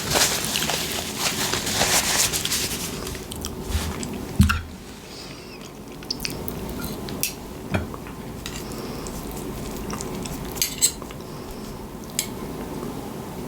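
Cutlery scraping and clinking against a plate: busy scraping for about four seconds, a sharp knock, then occasional light clinks.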